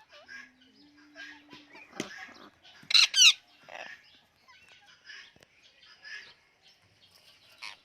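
Birds calling: a string of short repeated calls, with a loud, harsh double squawk about three seconds in.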